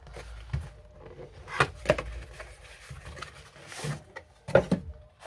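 Cardboard box being opened and a soft zippered carry case slid out of it, with a few sharp knocks of cardboard and case against a wooden workbench and a brief sliding rustle near the end.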